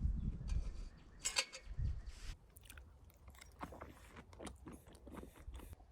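A person chewing a mouthful of chicken close to the microphone, with small clicks and crunches scattered through it.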